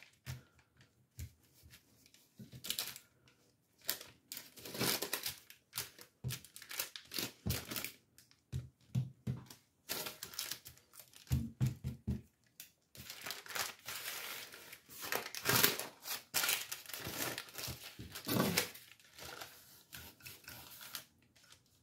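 Parchment paper crinkling and rustling in irregular bursts as hands press and pat crumbly dough flat on it.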